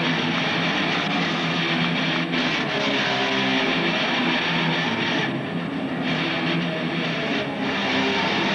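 Heavy metal band playing live: loud distorted electric guitars chugging a riff, heard from among the audience on a camcorder.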